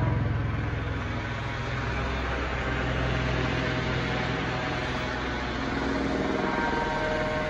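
Police helicopter flying overhead, its rotor and engine giving a steady, pulsing thrum that eases slightly about a second in.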